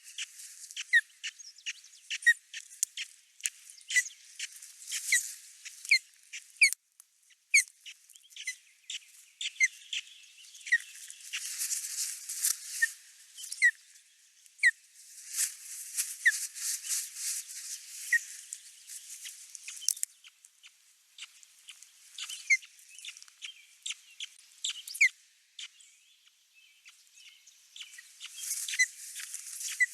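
Small birds chirping: short, sharp chirps repeated about once a second, over patches of high hiss that come and go.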